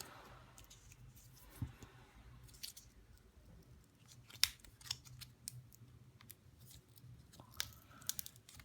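Faint, scattered clicks and crinkles of a small glued cable package being handled and pried at by hand, with one sharper click midway and a flurry near the end; the glued seal does not give way to fingers.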